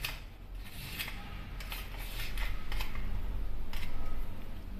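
Steel spoon scraping ghee out of a small plastic tub and knocking it off into a steel kadhai: a string of short scrapes and clicks over a low steady hum.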